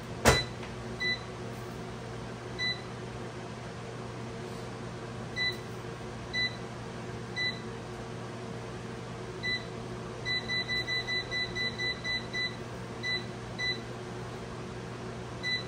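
Air fryer control panel beeping as its buttons are pressed: single beeps a second or more apart, then a quick run of about ten beeps, as the cooking time or temperature is set. A sharp knock comes just before the first beep, over a steady low hum.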